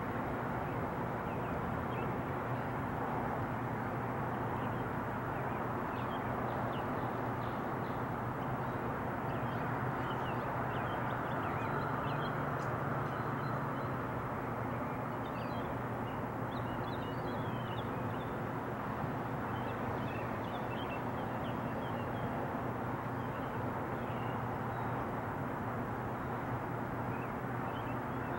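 Distant Sikorsky S-76 helicopter flying away, a steady low drone under even outdoor background noise, with small birds chirping now and then.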